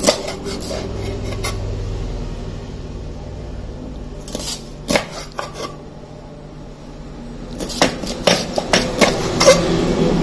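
Kitchen knife chopping a skinned eel into chunks, the blade knocking sharply on a plastic cutting board. There are a few knocks about halfway through, then a quicker run of knocks near the end.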